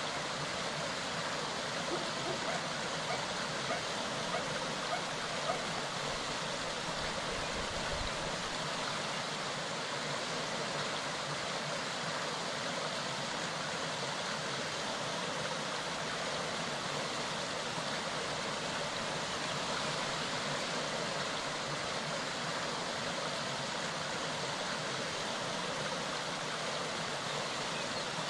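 Clear mountain stream babbling and rushing steadily, with a few faint ticks a few seconds in.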